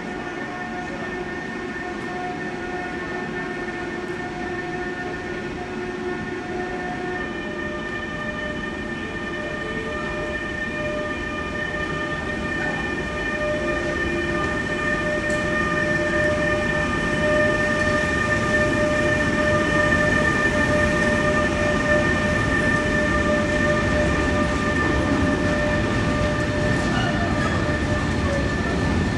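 Electric freight locomotive and its covered wagons passing slowly: a steady whine of several tones that shifts in pitch about a quarter of the way in, over the rumble and clatter of wheels on the rails, which grows louder as the wagons roll by.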